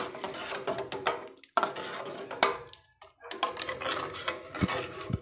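Metal ladle stirring soup in a metal cooking pot, clinking and scraping against the pot's sides and bottom, with two short pauses.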